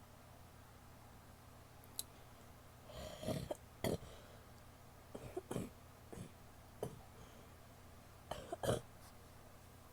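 A woman's wet coughs: a series of short coughs in small bouts with pauses between, the loudest near the end.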